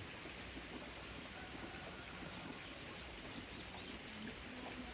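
Steady rain falling on persimmon tree foliage: an even hiss dotted with many small drop ticks.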